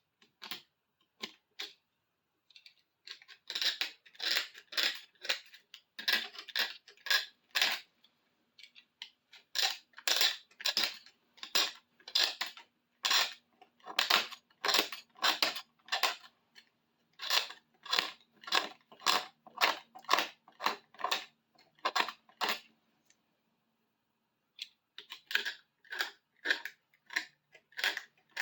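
Repeated short scraping strokes with a blade on a bar clamp's handle, about two a second in runs broken by brief pauses, taking off leftover chunks of tape glue.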